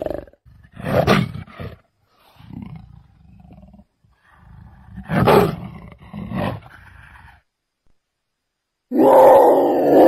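Leopard giving a series of short, harsh rasping roar calls, about five over several seconds, then a longer, louder continuous call beginning near the end.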